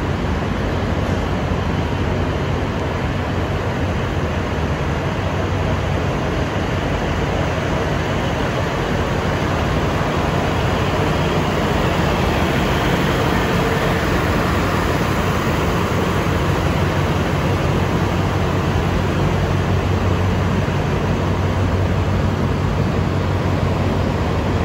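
Diesel railcar train's underfloor diesel engines running with a steady low drone as the train moves slowly along the platform, getting slightly louder as the cab end approaches.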